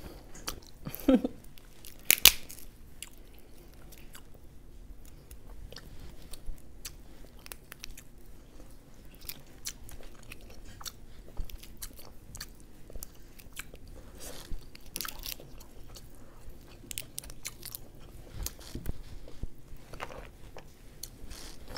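Close-up chewing and mouth sounds of eating snow crab, with sharp clicks and cracks of crab shell being broken apart by hand; the loudest cracks come about two seconds in.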